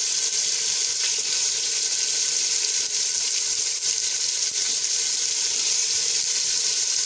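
Marinated mutton sizzling as it fries in hot ghee with browned onions and tomatoes in a pot, a steady hiss.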